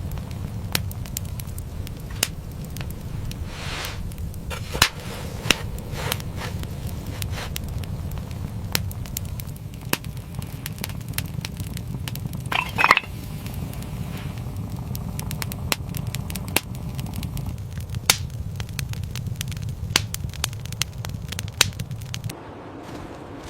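Steady low rumble with many scattered sharp crackles and snaps, and a louder burst of crackling about thirteen seconds in.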